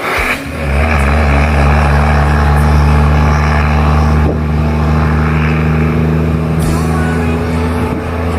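Heavy truck's diesel engine running with a steady, loud drone.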